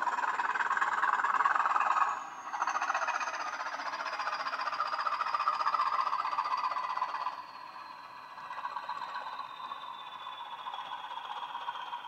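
Digital Class 20 diesel sound from a Hornby HM7000 DCC decoder, played through the model locomotive's small onboard speaker: the English Electric diesel engine running, with a thin high whistle that falls slowly in pitch throughout. The engine sound dips briefly about two seconds in and drops to a quieter level about seven seconds in.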